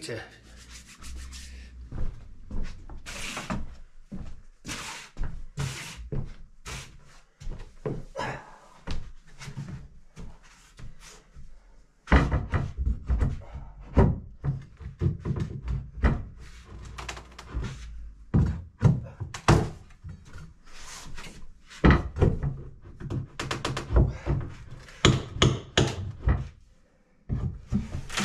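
Repeated wooden knocks and thunks of old floorboards being prised up with a long pry bar. The knocks are sparse and softer at first, then louder and closer together from about halfway through.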